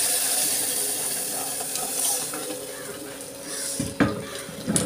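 Hot tempering oil in an aluminium pressure cooker sizzling loudly as wet amaranth greens are tipped in, the sizzle slowly dying down. Two short knocks come about four seconds in and just before the end.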